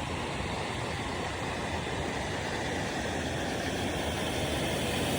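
Steady rushing noise of running water, growing slightly louder toward the end.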